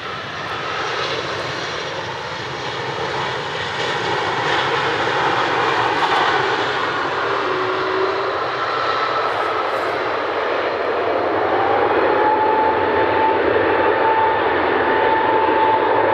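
Jet airliner engines on a wet runway: a steady rushing roar that grows louder. In the second half a steady engine whine rides on top.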